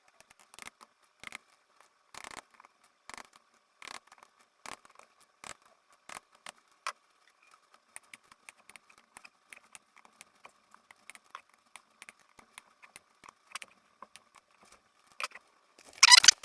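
Light metallic clicks and rattles of hand tools being worked on an engine's parts on the bench, a string of short ticks, some coming about once a second and others scattered in between.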